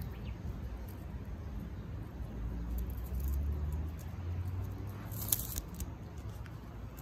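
An orange tabby cat's claws and paws ticking and scratching on asphalt and a dry grass stem as it plays, a few small scratches, over a low rumble that swells about halfway through.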